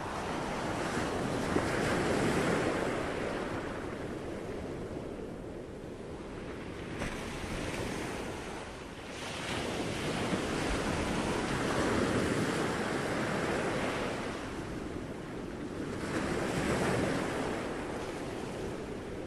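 Ocean surf: waves washing in, the rush swelling and fading every four to five seconds.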